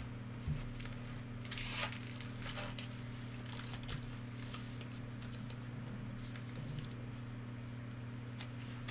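Trading cards and foil card packs being handled: a few brief soft rustles, the clearest about two seconds in, over a steady low hum.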